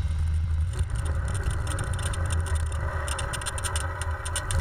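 Ural M-62 sidecar motorcycle's flat-twin engine running steadily as it rides along, a low, even drone.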